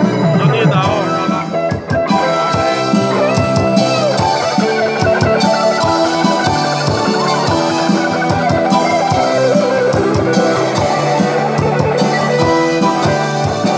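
Live band playing an instrumental passage: electric guitar, bass guitar and keyboard over a drum kit with a steady beat.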